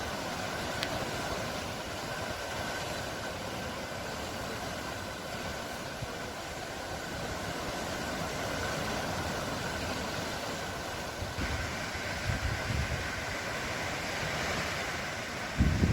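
Sea waves washing onto the shore in a steady, continuous rush, with a few low thumps near the end.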